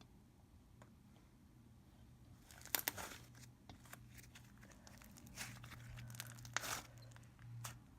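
Butter-snow slime (clay and instant snow) being poked and stretched by hand: faint crackles, clicks and squishes, in two short clusters.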